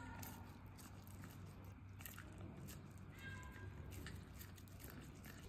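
A cat chewing corn kernels, with faint small clicks of biting. Short mewing sounds come at the start and again just after three seconds in.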